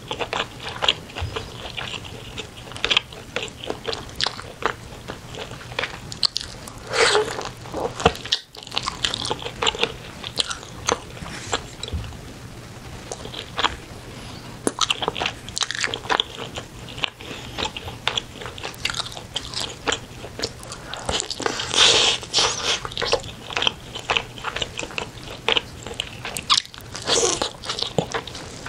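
Close-miked eating of spicy braised chicken: biting meat off a piece and chewing, heard as many short clicks and smacks in irregular clusters.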